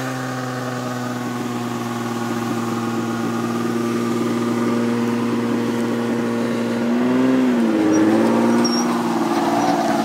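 A car engine held at a steady, raised speed in neutral, slowly getting louder, with a brief drop and pick-up in revs about seven and a half seconds in.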